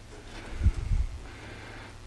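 A couple of dull, low knocks about half a second to a second in, the kind made when something is picked up or moved, over a steady low hum.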